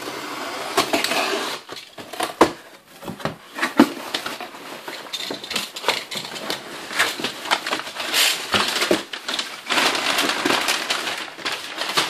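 A utility knife slitting the packing tape on a cardboard box, then the cardboard flaps being pulled open and crumpled packing paper rustled and lifted out, with scattered knocks of cardboard. The rustling is loudest about eight to eleven seconds in.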